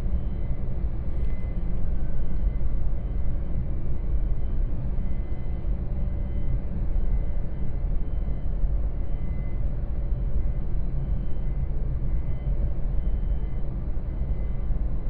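Steady low rumble and hum of a ro-ro car ferry's vehicle deck, heard from inside a car, with a faint high steady whine over it.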